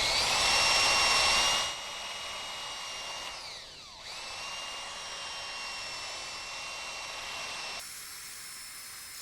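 Electric drill spinning a sandpaper-wrapped dowel to sand the curved part of a steel toolbox latch: a steady motor whine with loud, rough sanding noise for the first second and a half. About three seconds in the motor slows and then spins back up, running steadily before fading near the end.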